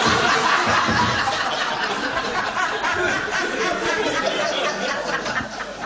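A group of listeners laughing at a joke's punchline, the laughter loudest at first and gradually dying down.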